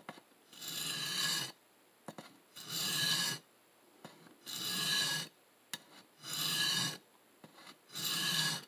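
CPM M4 steel knife blade ground across a DMT DuoSharp diamond plate in five separate grinding strokes, each under a second long and about two seconds apart. The edge bevel is being taken down near the plunge grind to close a gap and blend it into the rest of the edge.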